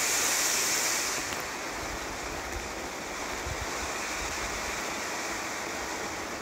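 Standard Fireworks Emoji Fountain, a novelty fountain firework, burning with a steady hiss as it sprays sparks. The hiss is brightest in the first second, then eases a little and holds steady.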